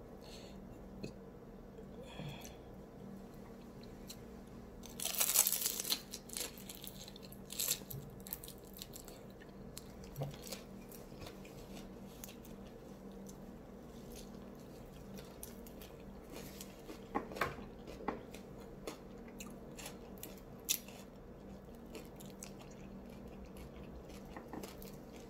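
A person biting into a fried egg roll with a loud crunch about five seconds in, then chewing it with scattered crackles of the crisp wrapper.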